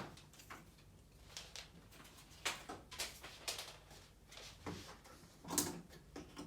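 Faint scrapes, rustles and light knocks of a large cardboard TV box and its packaging being handled and opened, with a louder knock-like sound about five and a half seconds in.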